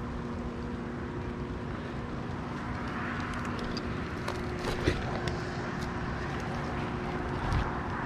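A motor running steadily in the background with a low, even hum, under scattered clicks and knocks; one sharp knock stands out about five seconds in.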